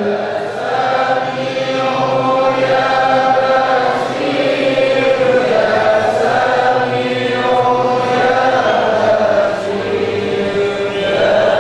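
Men's voices chanting dzikir together in unison, a slow melodic religious recitation of long held notes that rise and fall.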